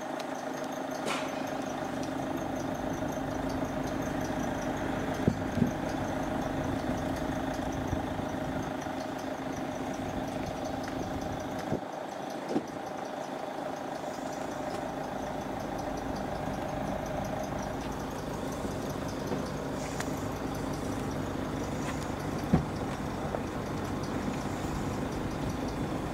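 Steady hum of a vehicle standing with its engine or equipment running, carrying a couple of steady pitched tones, with a few light clicks.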